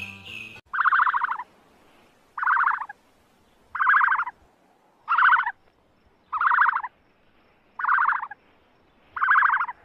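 An animal calling seven times at an even pace, about one call every second and a half, each call a short rasping burst made of rapid pulses.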